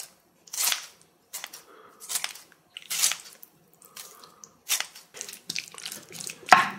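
Close-miked eating: a run of short, irregular crunching and chewing bites, roughly one every half second to a second, as kimchi is eaten with jajangmyeon.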